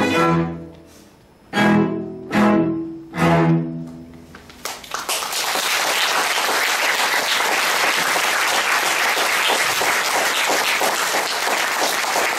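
Cello quartet ends a piece: a held chord fades, then three short, loud chords about a second apart close it. About five seconds in, audience applause starts and keeps going at a steady level.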